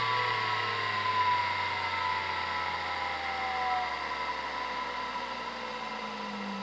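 Hitachi DK522C-10 3600 rpm 5.25-inch SCSI hard drive spinning down after the computer is switched off: its whine of several tones falls steadily in pitch and slowly fades.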